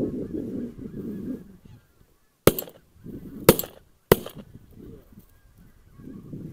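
Geese honking, then three shotgun shots about two and a half seconds in, the second a second after the first and the third half a second later.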